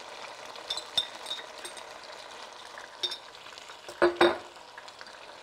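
Pan of peeled tomatoes and onion sizzling in hot oil, just after the tomatoes went in, stirred with a spoon. A few light clicks, and two louder knocks about four seconds in.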